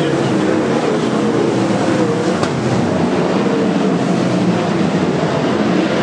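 Several winged sprint car engines running at low revs, their pitch wavering up and down as the cars roll slowly. A single sharp click about two and a half seconds in.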